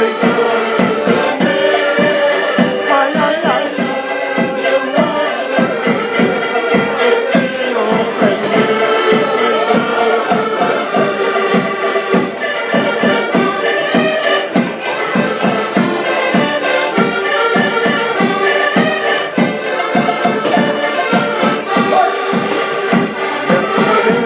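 Portuguese folk ensemble playing: several diatonic button accordions sounding together over a bass drum beating a steady rhythm.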